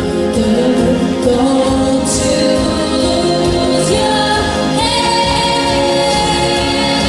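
Upbeat pop music with female voices holding long sung notes together over a steady backing beat; a new, higher held note comes in about five seconds in.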